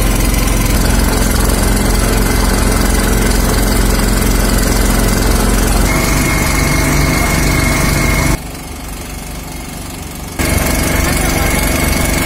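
A boat's engine running steadily with a constant hum, heard from on board. About eight seconds in, it drops away to a quieter hiss for about two seconds, then comes back.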